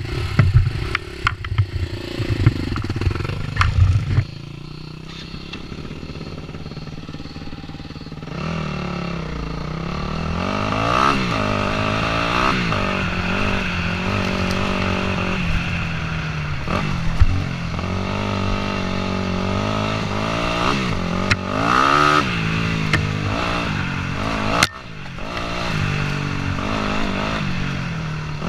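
Yamaha dirt bike's engine heard from a helmet-mounted camera while riding a rough trail: its pitch climbs and drops again and again as the throttle is opened and shut and gears change. It opens with a few seconds of loud low rumbling and knocks before the engine settles into the riding.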